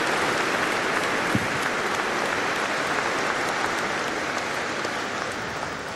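Audience applauding in a large hall, steady at first, then dying away over the last couple of seconds.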